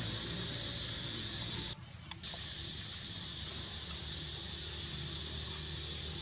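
Forest ambience: a steady high-pitched insect hiss, with a brief dropout about two seconds in.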